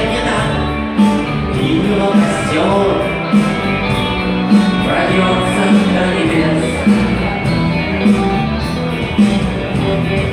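Rock-style song music with guitar and a regular beat.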